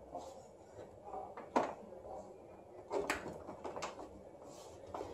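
About four light clicks and knocks, spread over several seconds, from a power plug and cord being handled and fitted into the back of an air-cushion film machine's plastic housing.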